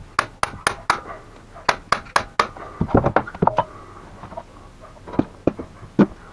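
Hammer blows on a manual impact screwdriver, driving home the bolts of a gearbox bearing retainer plate: sharp metallic strikes in quick runs of about four a second, then a cluster and a few single blows.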